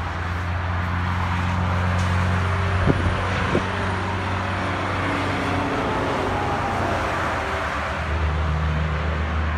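Steady low rumble of motor vehicle traffic, with a couple of faint knocks about three seconds in.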